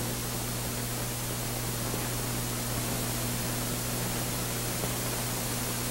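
Steady hiss with a low, even hum: the background noise of an old film soundtrack, with no other sound standing out.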